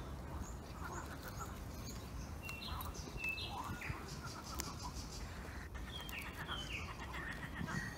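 A dog gnawing on a wooden stick, with a few sharp clicks and cracks. Birds chirp and call intermittently over a steady low background noise.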